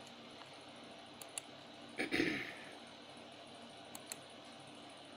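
Light, sharp clicks in two quick pairs, about a second in and about four seconds in, over a faint steady hiss. About two seconds in comes a short breath-like sound.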